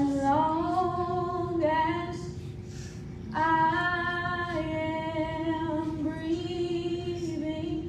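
A woman's voice singing long, held notes in two phrases, the second starting a little over three seconds in, over a steady sustained tone.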